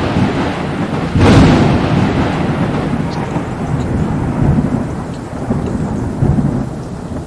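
Thunder in a rainstorm: a loud clap about a second in, then long rolling rumbles that slowly fade, over the steady hiss of heavy rain.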